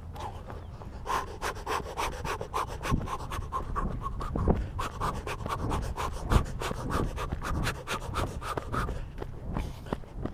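Quick footsteps crunching over dry grass and fallen leaves, a dense run of short steps from about a second in until near the end, with heavy breathing close to the microphone.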